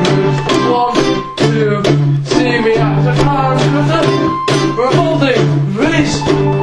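Background music with plucked guitar and a steady beat.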